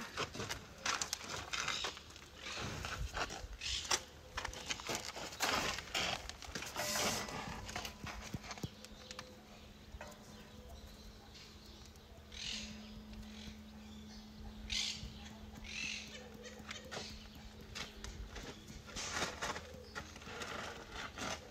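White rhinoceroses moving and sparring on dry dirt: scattered scuffs, footfalls and short noisy bursts. These are busiest in the first several seconds, then thin out.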